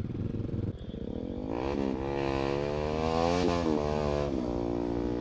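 Motorcycle engine revving as the bike is eased out of mud. Its pitch rises steadily for about two seconds and then drops back, with a hiss alongside, before it settles to idle.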